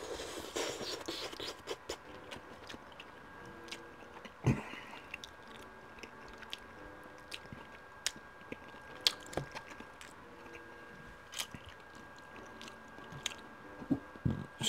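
Close-miked chewing of a mouthful of spaghetti, with many small wet mouth clicks and smacks. Now and then a metal fork scrapes and taps on the plate as more pasta is twirled up, with one louder knock about four and a half seconds in.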